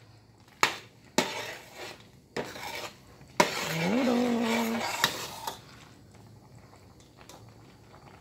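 Metal spoon stirring macaroni in a stainless steel pot of cooking water, knocking against the pot in several sharp clinks over the first five seconds. A brief low hum rises and holds about three and a half seconds in.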